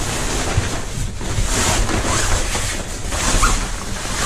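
Fabric motorcycle cover rustling and swishing as it is pulled and spread over the bike close to the microphone, in a few swells of hiss.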